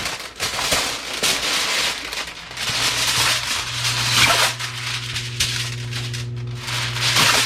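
Aluminium foil crinkling and rustling up close as sheets are pulled out and handled. A steady low hum joins it about halfway through.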